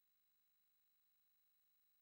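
Near silence: only a faint steady hiss with a thin high tone, no sound from the scene.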